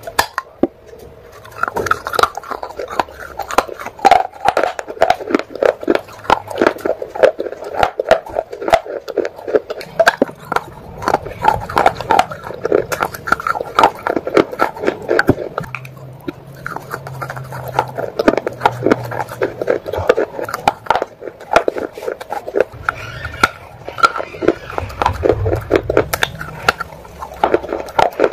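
Close-miked biting and crunching of wet baked-clay pot pieces, with chewing and mouth sounds: a dense, irregular run of sharp crunches.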